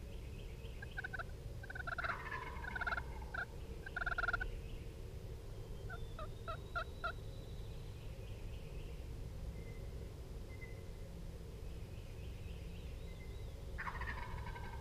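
Wild turkey gobbling several times: bursts of gobbles in the first few seconds, another around six to seven seconds in, and one more near the end.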